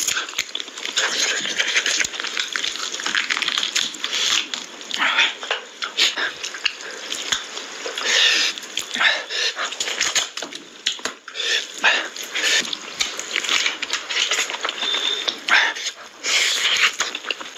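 Close-miked eating sounds of a man eating mutton curry with his hands: irregular chewing, lip-smacking and wet mouth noises as he bites into a mutton leg piece.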